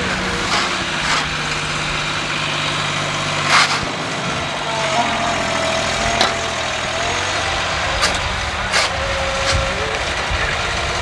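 An engine running steadily, with half a dozen short, sharp knocks or scrapes over it.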